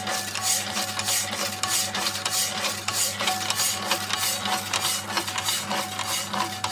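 Homemade motor-driven power hacksaw, its blade pushed back and forth by a belt-driven crank wheel, sawing through a rusty steel bar in a vise: a rhythmic rasp of several strokes a second over a steady motor hum.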